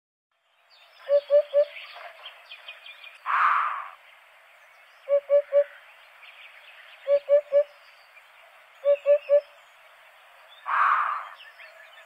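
Eurasian hoopoe giving its low three-note 'oop-oop-oop' song: four phrases of three quick notes, about two seconds apart. Twice between phrases comes a brief harsh rushing sound.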